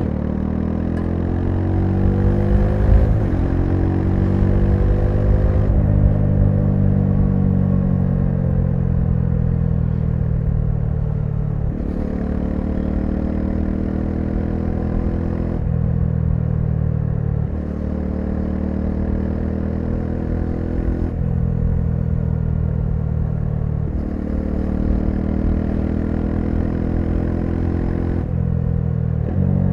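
Bajaj Dominar 400's single-cylinder engine running under way, its pitch rising as the bike accelerates in the first few seconds. After that the engine note shifts in steps every few seconds as gears are changed.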